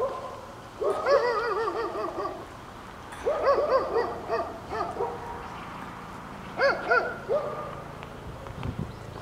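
A dog vocalizing in three bursts of quick, rising-and-falling yodelling yips: about a second in, again around three to four seconds, and once more near seven seconds.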